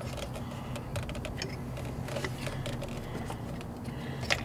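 Faint clicks and the rub of rubber and plastic as a coil-on-plug ignition coil is worked down into its spark plug well, over a steady low hum; one sharper click near the end.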